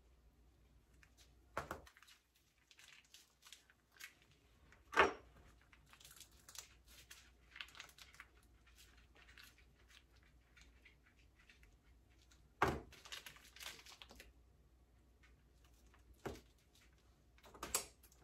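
A plastic cake-decorating bag crinkles as it is squeezed to pipe cream into small containers. A few sharp knocks come from the containers being set down on the countertop, the loudest about five seconds in.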